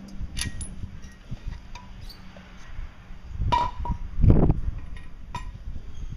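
Metal clinks and knocks from taking the propeller and its nut off an outboard motor's propeller shaft: a few sharp clinks, one ringing briefly about three and a half seconds in, then a heavier thump just after.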